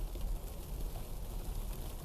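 Steady outdoor noise of a heavy snow shower: a low, uneven rumble under an even hiss, with no distinct events.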